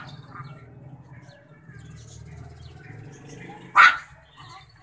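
Small dog giving one sharp, loud bark about four seconds in, with quieter yips and scuffling around it as it faces off with a rooster.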